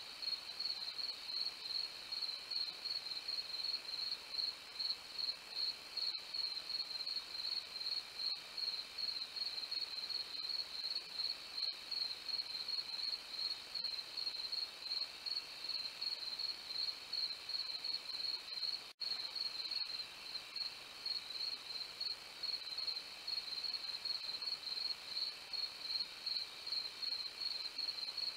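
Night insects, crickets, chirping steadily in an even, rapid, high-pitched rhythm. The sound cuts out for an instant about two-thirds of the way through.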